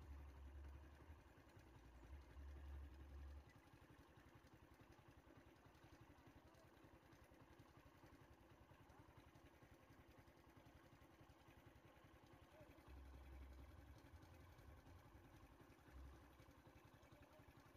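Faint idling vehicle engine, steady and low. A deeper rumble swells near the start and again about three-quarters of the way through.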